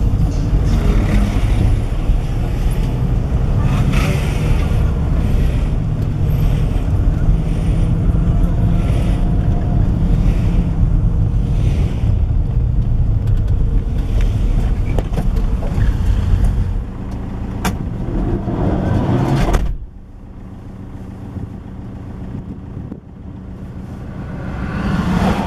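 Engine and road noise of a vehicle driving in traffic, heard from inside: a steady low rumble. About 20 s in it drops suddenly to a quieter traffic sound that swells again near the end as another vehicle draws close.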